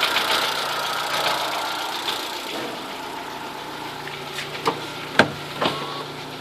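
Chevrolet Corsa 1.0 VHC 8V engine idling with a rhythmic knocking that fades out about two seconds in. The knock stops when the alternator belt is slackened and persists with another alternator and a new tensioner; the owner suspects a worn main bearing. A few sharp clicks near the end.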